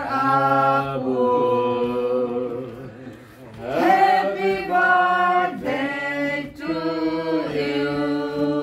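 A small group of mixed voices singing a birthday song together, unaccompanied, in long held notes, with a short lull about three seconds in.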